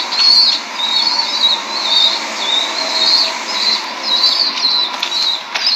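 Young bird peeping over and over, short high-pitched calls about two a second: hungry begging calls.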